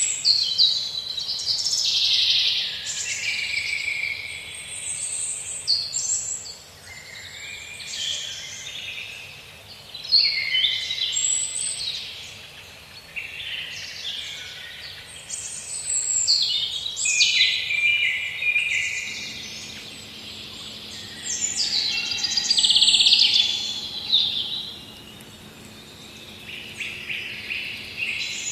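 Birds singing in a run of high, busy phrases a few seconds long, separated by short pauses.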